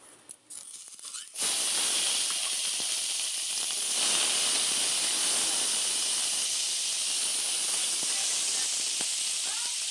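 Chopped red onions sizzling in hot oil in a wok: after a quiet second and a half the hiss starts suddenly as they hit the oil, then holds steady as they fry and are stirred with a spatula.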